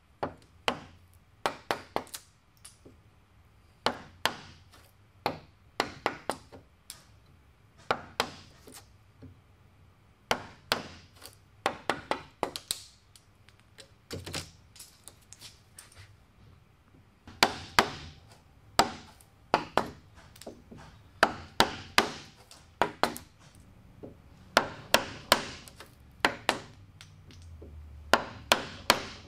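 Wide chisel working the edge of a cypress tabletop: repeated sharp taps and cracks as it is driven into the wood and levered over to split off small chips. The sounds come in clusters with short pauses.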